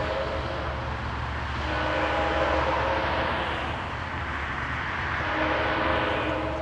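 Diesel-hauled passenger train passing close by: the locomotive's engine hum runs under a broad rumble of wheels on rail that swells and eases.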